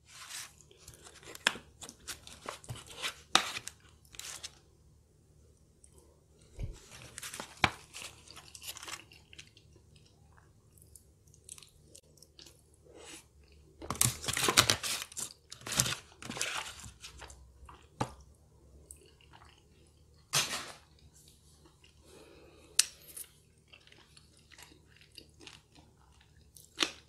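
Close-miked chewing of a mouthful of cheesy baked pasta, with sharp clicks and scrapes of a fork against its foil tray. A louder, denser run of eating sounds comes about fourteen seconds in.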